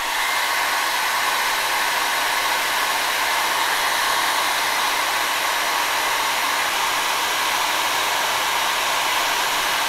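Handheld hair dryer switched on and running, giving a steady rush of blown air with its fan motor.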